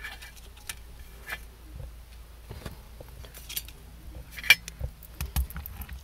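Light, scattered clicks and taps of a small perfboard circuit and solder wire being handled on a hard work surface, with a sharper click about four and a half seconds in.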